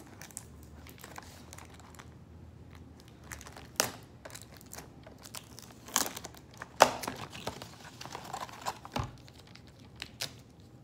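A foil alcohol prep pad packet crinkling as it is pulled from its box, handled and torn open, with a few sharp crackles, the loudest about seven seconds in.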